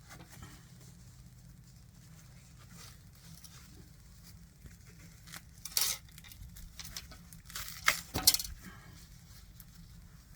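Scattered light knocks and clinks of hands and tools working over a cut kudzu root, mostly faint, with a few sharper taps about six seconds in and a quick cluster around eight seconds in, over a low steady hum.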